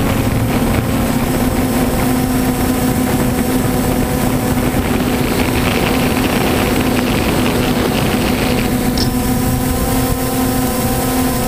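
A quadcopter drone's motors and propellers running steadily in flight: a loud buzzing hum made of several steady tones, recorded by the camera on board the drone.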